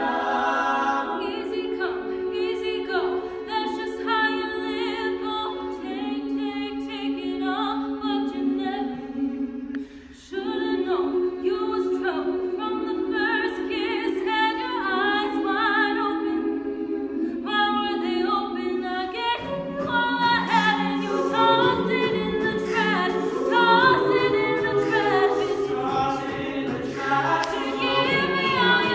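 Mixed a cappella choir singing: held chords in the middle voices with a melody moving above them. The chord breaks off briefly about a third of the way in, and about two-thirds of the way in lower voices join and the singing grows fuller.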